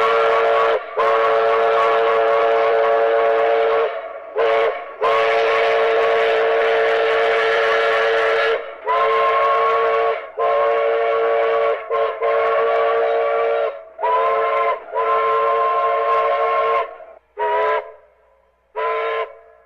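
Steam locomotive chime whistle sounding a chord of several notes at once, blown in a series of blasts: several long ones, then shorter toots near the end, each note scooping up slightly as it starts.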